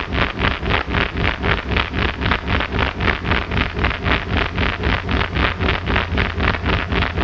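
Experimental noise music made with magnetic pickups and analog electronics: a hiss pulsing evenly about four times a second over a steady low hum.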